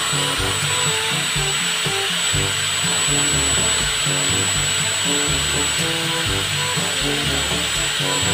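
Angle grinder running free with no disc fitted, its motor giving a steady high whine at full speed, over background music.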